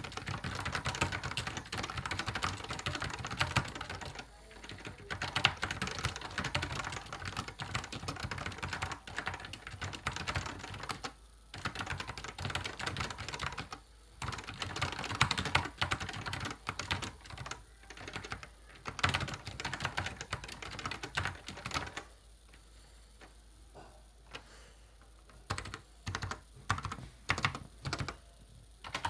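Typing on a Fujitsu FMV-KB611 keyboard with leaf-spring linear switches: fast runs of key clicks with a few short pauses. For the last several seconds it slows to scattered single keystrokes.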